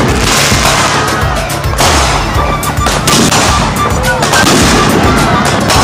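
Fireworks going off in a rapid string of bangs and crackle, with hardly a gap between reports.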